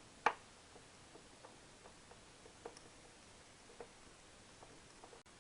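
Faint scattered clicks and taps of small parts being handled, with one sharper click just after the start.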